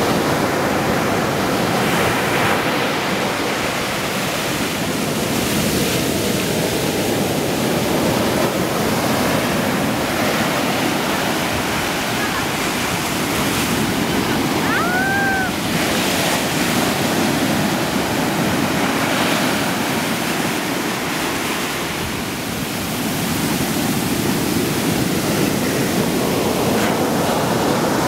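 Ocean surf breaking and washing up the sand at the water's edge, a steady rush of waves that swells and eases.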